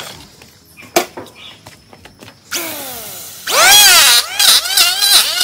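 Electric hand planer starting about two and a half seconds in and cutting across a wooden tree root; its motor pitch dips and recovers again and again as the blades bite into the wood. A single sharp knock about a second in.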